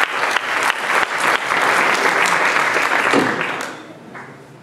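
Audience applauding, with many rapid claps; the applause dies away about three-quarters of the way through.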